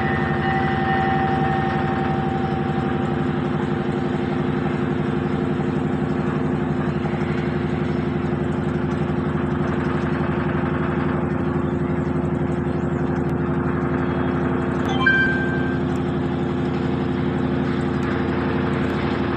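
Samsung inverter washing machine running with a steady motor hum at a constant pitch, during a test run for a jumping and noise complaint. A brief short chirp cuts in about fifteen seconds in.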